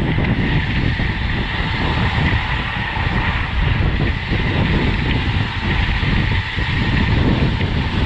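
Wind rushing over the microphone while riding a road bike at race speed: a steady, heavy rumble with a constant hiss over it.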